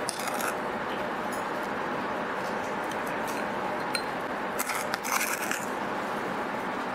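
A small metal spoon scraping and clinking against a cup and the glass neck of a conical flask as baking soda is spooned in, with a few light ticks. The busiest stretch is about four and a half to five and a half seconds in, over steady background noise.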